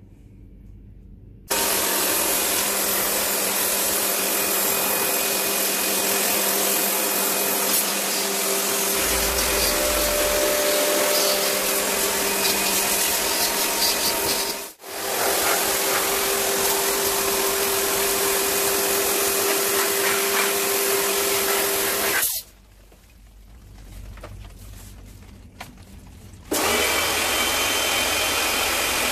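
Small electric pressure washer running, its pump motor humming under the hiss of the water jet spraying a split AC indoor unit's evaporator coil. It starts about a second and a half in, cuts out for an instant around the middle, stops for about four seconds near the end, then starts again.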